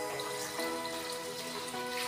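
Background electronic music in a quiet passage of held chords, with no beat.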